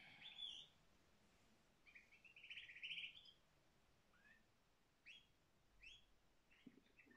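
Domestic canary singing faintly: a short opening phrase, a buzzy trill about two seconds in, then a string of short rising chirps.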